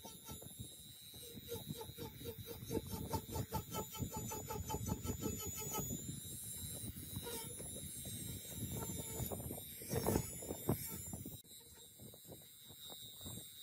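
Small handheld rotary tool running at a high-pitched whine, its spinning brush wheel rapidly ticking and scrubbing across a smartwatch circuit board. The sound drops in level abruptly about three-quarters of the way in.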